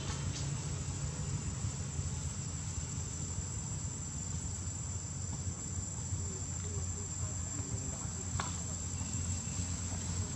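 Insects droning steadily in the forest, one unbroken high-pitched tone, over a low steady hum.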